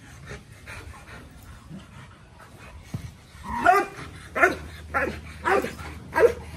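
American bulldog barking: a run of five loud barks about half a second apart, starting about halfway through, the first one drawn out longer than the rest.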